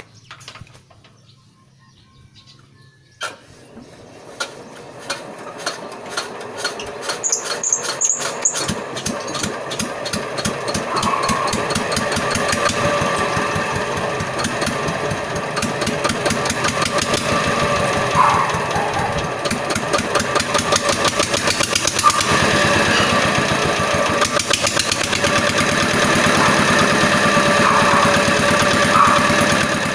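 Small generator engine starting up: after a click about three seconds in, it runs with a rhythmic beat, growing louder over the next several seconds, then settles into steady running.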